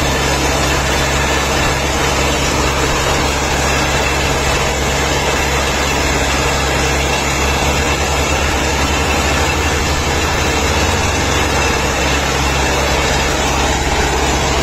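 Old tractor engine running steadily at an even pitch while pulling a trailer loaded with logs.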